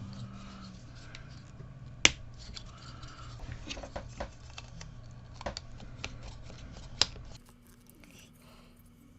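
Small plastic model-kit parts being handled and clicked together: light rustling with a few sharp plastic clicks, the loudest about two seconds in and again near seven seconds.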